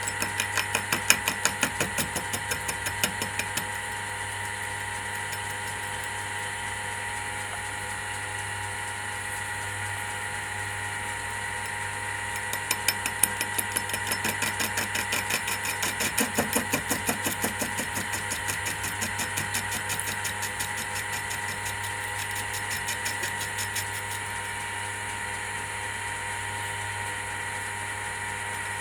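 Mini lathe running with a steady motor hum and whine. Twice it breaks into a rapid, even ticking, about five a second, for a few seconds at a time.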